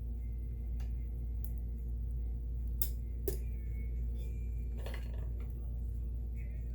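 Kenmore 158.1760 sewing machine sewing a stretch stitch at slow speed: a steady motor hum with a few light clicks from the mechanism.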